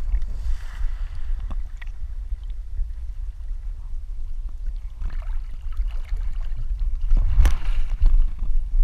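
Water sloshing around a swimming border collie, heard through a GoPro strapped to its back, over a steady low rumble. About seven and a half seconds in there is a louder burst of splashing as the dog scrambles out of the water onto the bank.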